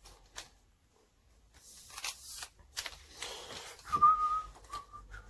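Handling of the detector's plastic stem parts: small clicks and rustling, then a sharp knock about four seconds in. The knock is followed by a short steady high tone, then a shorter one.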